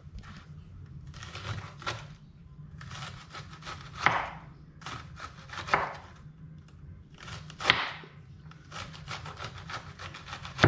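Kitchen knife slicing cabbage into thin shreds on a wooden cutting board: irregular cuts with a few louder knocks of the blade on the board, then a run of quick strokes near the end.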